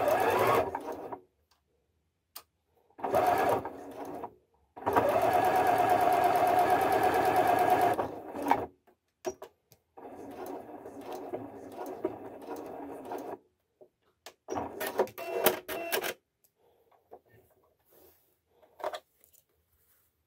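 Janome 3160QDC computerized sewing machine stitching through cotton fabric in several short runs. The loudest and longest run is about five to eight seconds in, with a quieter run from about ten to thirteen seconds and a short run of clicks around fifteen seconds.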